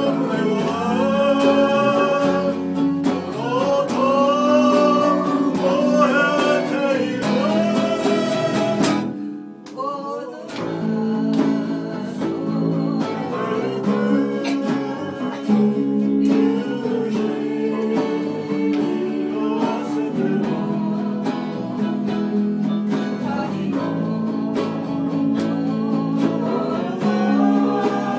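A small band playing live: strummed acoustic guitar and electric guitar with a man singing. The music drops away briefly about nine seconds in, then carries on with mostly steady chords, and the singing returns near the end.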